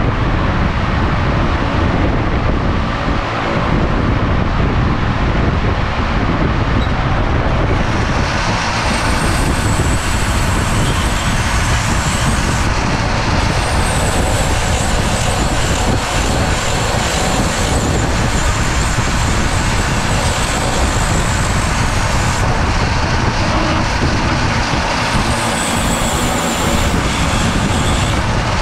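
Flexible-shaft rotary tool with a small sanding bit grinding the edge of a cork decoy body and its wooden bottom board: a high whine comes in about eight seconds in and drops out briefly twice. A steady, loud rumble and hiss run underneath.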